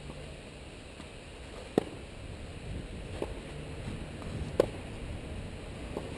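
Tennis racket strikes in a rally: four hits about a second and a half apart, loud near strikes alternating with fainter ones from the far end of the court, over a low steady hum.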